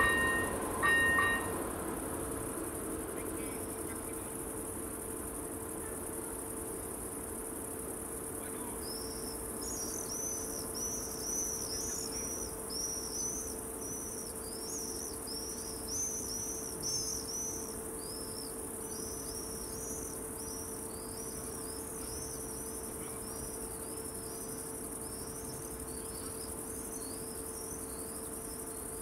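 Level-crossing warning bell sounding its last evenly spaced electronic tones, stopping about a second in. After that, insects chirp: a steady high trill throughout, and a run of short repeated chirps at about two a second from about nine seconds in, over a low steady hum.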